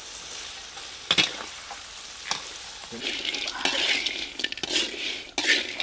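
Crickets frying in a steel wok: a steady sizzle, with a metal spatula stirring and scraping against the pan. A sharp knock of the spatula on the wok comes about a second in, and the scraping strokes come thicker in the second half.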